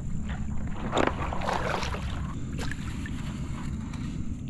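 Hobie Lynx fishing kayak being pushed off a muddy shallow bank with a paddle: irregular splashing and sloshing of water around the hull and paddle, strongest about a second in, over a steady low rumble of wind on the microphone.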